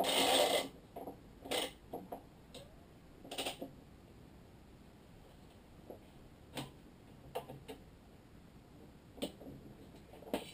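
Badminton string being woven and pulled through the cross strings of a racquet on a stringing machine: a half-second rush of string at the start, then scattered light clicks and rustles as the string catches on the frame and strings.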